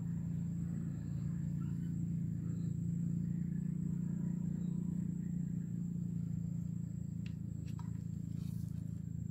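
A steady low hum, with two light clicks late on as a plastic intake flange and gasket are handled and fitted onto the studs of a Shingu chainsaw's crankcase.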